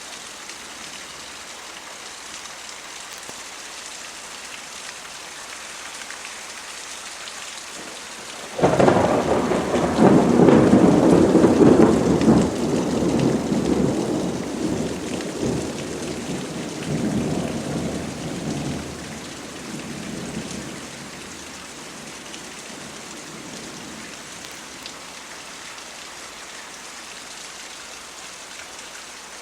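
Steady rain falling, with a clap of thunder that breaks in suddenly about a third of the way through and rolls on in waves, fading out over about twelve seconds, before only the rain is left.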